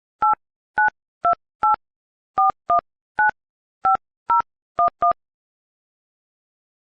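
iPhone 12 Pro Max phone-app keypad touch tones as a phone number is dialed: eleven short two-note DTMF beeps at uneven intervals over about five seconds.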